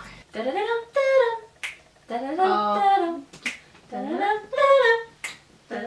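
A woman singing short, wordless, gliding phrases while snapping her fingers in time, four sharp snaps a little under two seconds apart.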